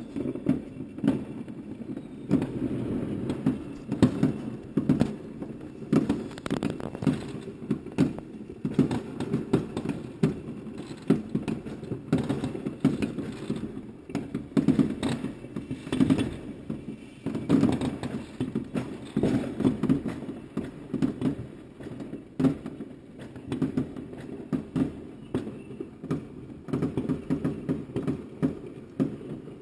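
New Year's fireworks going off all around: a dense, unbroken run of overlapping bangs and crackles, most of them deep booms.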